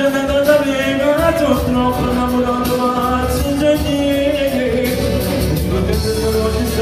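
A man singing live into a hand-held microphone over amplified music with a steady beat, holding long notes.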